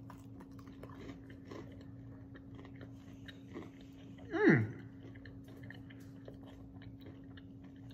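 Close-up biting and chewing of fried coconut shrimp, with small crunches of the breading. About halfway through, a brief vocal sound that falls in pitch is the loudest thing, and a steady low hum runs underneath.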